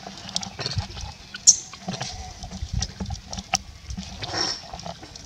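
Macaques shifting about and handling their babies: scattered small clicks and rustles over low thumps, with one sharp click about one and a half seconds in and a brief hissing sound just after four seconds.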